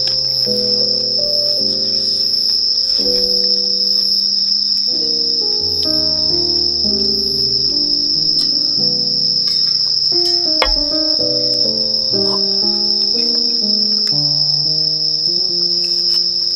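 A chorus of night-singing insects, a constant high-pitched trill. Underneath it, a soft melody of low notes changes pitch every fraction of a second, with a few faint clicks.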